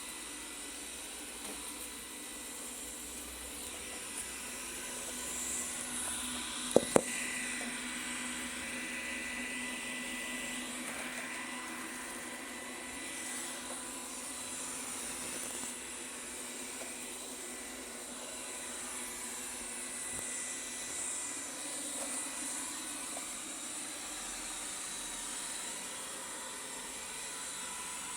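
Xiaomi S10 robot vacuum running, a steady whirring hiss with a thin high whine from its suction fan and brushes. Two sharp knocks come close together about seven seconds in.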